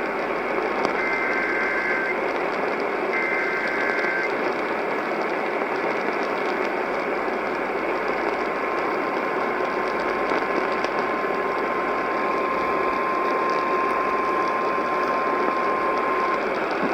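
Emergency Alert System tones received over a hissing AM radio signal. The end of one buzzy two-pitch SAME data header burst is followed by two more, each about a second long, finishing about four seconds in. After a few seconds of static, a steady single-pitch weather-radio attention tone sounds for about eight seconds.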